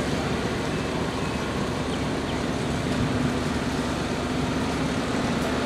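Steady outdoor background noise: an even, continuous rumble with a faint low hum and no distinct events.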